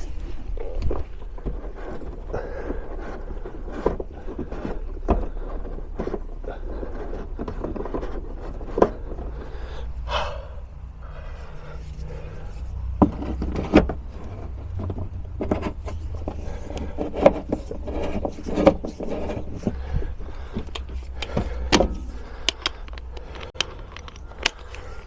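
Irregular metallic clinks, knocks and scrapes of hand tools and suspension parts being handled while a car's rear shock absorber is fitted, over a steady low rumble.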